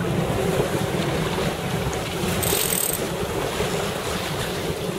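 Wind buffeting the microphone and water rushing past the hull of a sailing yacht under way, a steady rushing noise. A short high-pitched beep sounds about halfway through.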